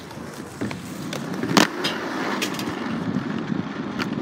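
Wheels rolling over skate-park concrete, with a loud sharp clack about one and a half seconds in and a few lighter clicks around it.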